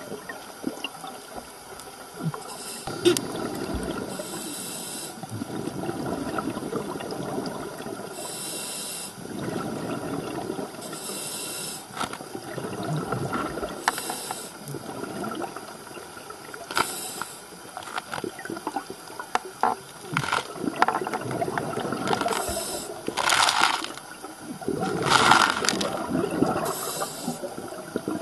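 Scuba diver breathing through a regulator underwater: a short hiss on each inhale, then a longer gurgle of exhaled bubbles, repeating every few seconds.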